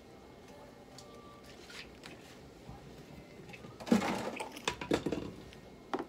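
Quiet room tone, then about four seconds in a burst of handling noise: rustling and knocks as a long-haired cat is held on a steel exam table for syringe feeding.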